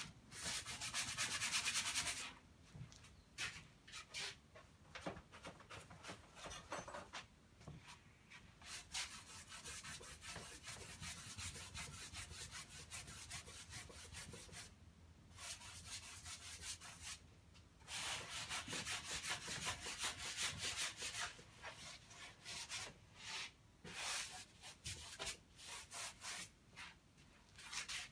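Paintbrush scrubbing oil paint across canvas: stretches of quick scratchy back-and-forth strokes broken by short pauses, with single separate strokes near the end.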